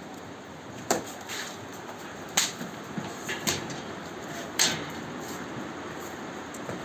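Four sharp knocks over a steady background hiss, spaced about a second apart.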